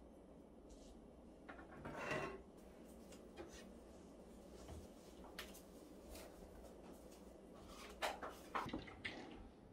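Faint handling sounds of an IKEA RISATORG wire-mesh basket with a wooden handle: a rub and clatter about two seconds in, then a few sharp knocks near the end.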